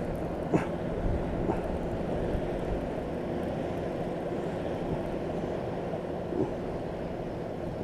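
A steady low motor drone, with a few light clicks in the first second and a half.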